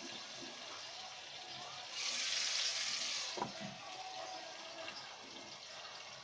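Chicken breast pieces frying slowly in oil in a covered pan over low heat: a soft, steady sizzle. About two seconds in there is a louder burst of hiss lasting about a second, followed by a light tap.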